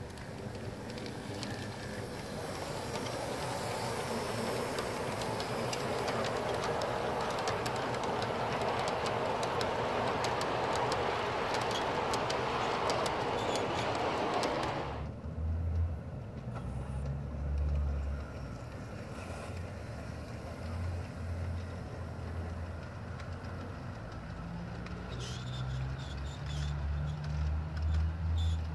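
Large-scale garden model train rolling past close by: a steady clatter of wheels on the track with rapid fine clicks, growing louder as the cars go by, then cutting off abruptly about halfway. After that the train is farther off, with low thumping rumbles and a few faint clicks near the end.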